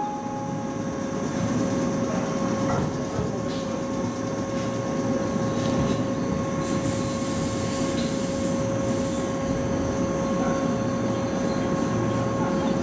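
JR 115 series electric train pulling out of the platform, a steady rumble of running gear with a constant hum over it.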